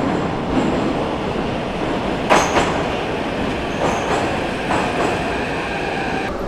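Kyiv Metro train pulling into an underground station, its wheels clattering over the rails with a few sharp clanks. A steady whine rises out of the rumble as the train slows near the end.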